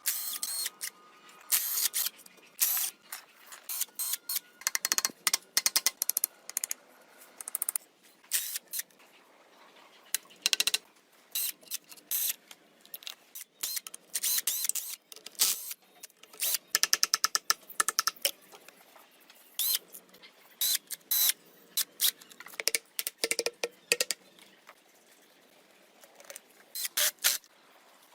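Irregular sharp clicks and short scraping rasps, some in quick runs of rapid ticks, from hand-tool work on the car's parts.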